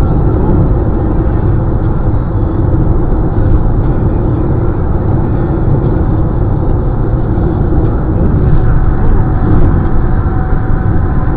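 Steady road noise of a car driving at highway speed, a low rumble of tyres and engine heard from inside the cabin.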